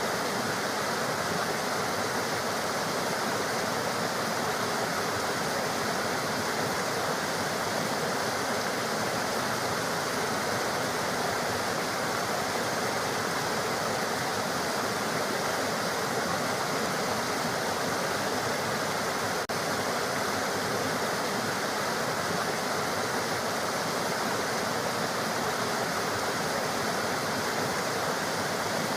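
Steady, unbroken rush of water from a waterfall or fast mountain river.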